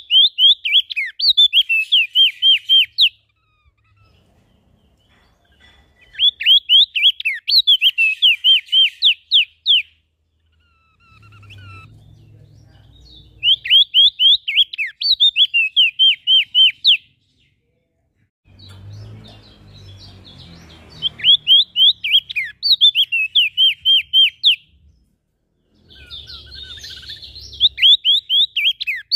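Small songbird singing repeated phrases of rapid, sharply falling whistled notes, about four notes a second, each phrase lasting about three seconds and coming every six to seven seconds. A faint low rumble sits between some of the phrases.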